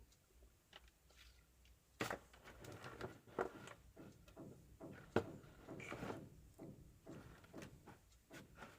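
Small clicks, taps and rustling from hands working a cable and heat-shrink tubing, beginning with a sharp click about two seconds in, with a louder knock about five seconds in.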